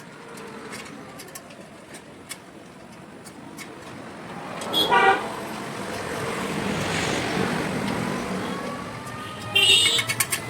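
Vehicle horn: one short honk about five seconds in, then near the end a louder blast followed by a quick string of short toots. A passing vehicle's noise swells and fades between them.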